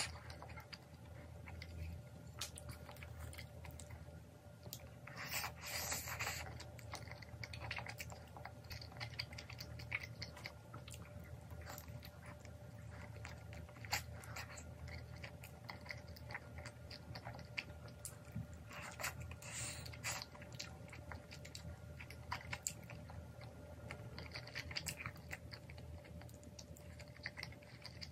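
Close-up eating sounds of a person biting and chewing saucy bone-in spicy cheese chicken, with small wet clicks. A few louder, longer mouth noises come about 6, 19 and 25 seconds in.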